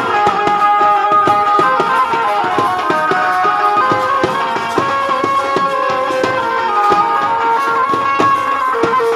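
Indian band-party music: side drums and a bass drum beaten with sticks in a steady quick rhythm under a held, wavering melody line.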